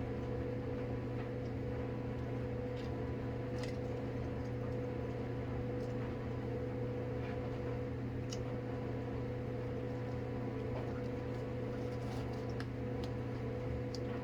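Steady machine hum with several fixed tones, with a few faint scattered clicks and taps.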